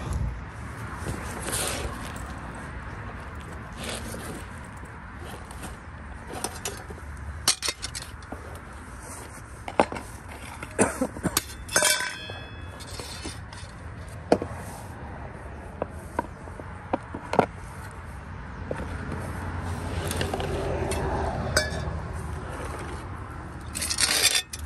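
Scattered sharp clinks and knocks of gold-prospecting gear (metal pan, tools) being handled and set down on bedrock, with a short scrape of a tool in a rock crevice near the end.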